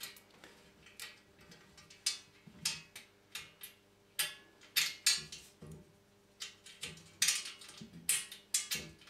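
Small steel washers and a screw clicking and clinking against a steel TV wall bracket as they are fitted by hand: a dozen or so light, irregular clicks.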